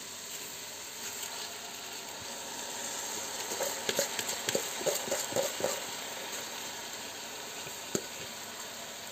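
Chicken, onion and carrots sizzling in a hot deep pan while soaked rice is poured over them, with a run of small crackles and taps in the middle as the wet rice lands.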